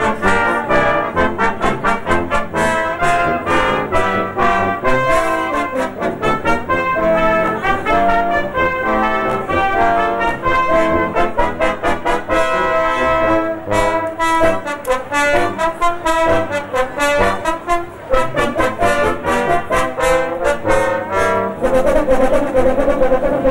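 Brass band playing a tune with quick notes and a steady beat, trumpets and trombones to the fore.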